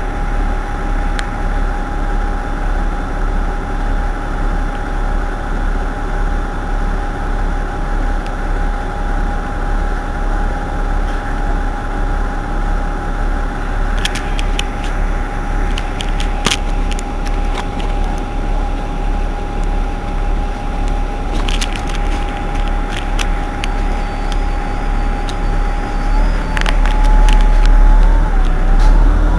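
Irisbus Citelis 18 articulated bus idling at a stop, its engine running steadily with a constant high whine over it and a few light clicks. Near the end the engine grows louder and the whine wavers.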